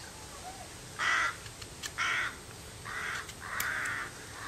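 A crow cawing: a series of about five harsh caws, roughly a second apart.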